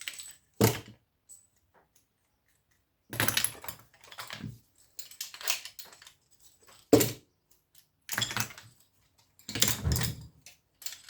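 Small metal parts clinking and clattering in short irregular bursts as screws are undone and scrap coil pieces handled, with one sharper knock about seven seconds in.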